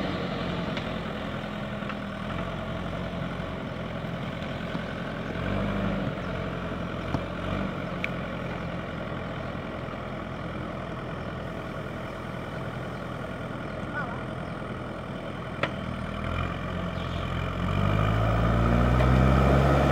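JCB backhoe loader's diesel engine idling steadily, with a couple of sharp knocks, then revving up near the end as the front loader works the hydraulics to take up a concrete culvert pipe.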